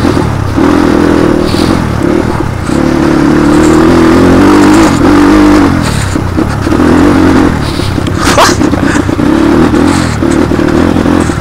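Motorcycle engine running under way, its note rising and dropping again several times as the throttle opens and closes. A brief rising squeal cuts in about eight seconds in.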